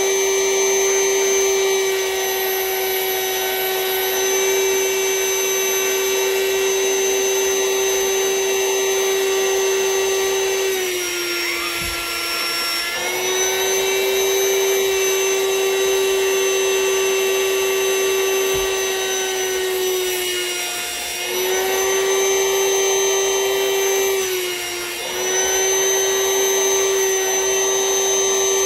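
Vacuum cleaner running steadily, drawing the air out of a vacuum storage bag packed with plush toys. Its high motor whine sags briefly in pitch three times, about eleven, twenty and twenty-four seconds in.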